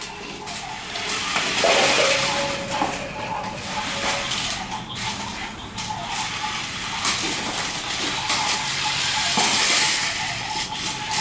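Two GRRRUMBALL remote-control toy vehicles racing on a track: small electric motors whirring with a steady whine, along with plastic clattering and knocking as they roll.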